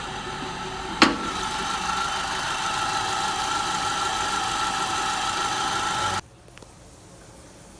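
Citroën C3 engine idling with the air-conditioning compressor's pulley bearing droning and whining loudly: the bearing is worn. A sharp click comes about a second in, after which the whine is louder; the sound cuts off suddenly about six seconds in.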